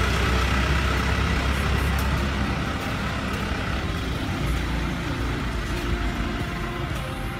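A small box truck's engine running as it drives away ahead, its low rumble slowly fading.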